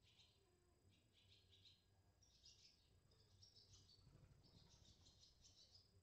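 Barn swallows twittering faintly: runs of quick high chirps that come closer together and get a little stronger in the second half.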